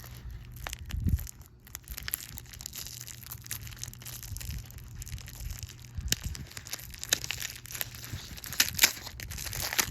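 Plastic candy packaging crinkling and crackling as hands work to open it, in irregular crackles that grow sharper and louder around six seconds in and again near the end.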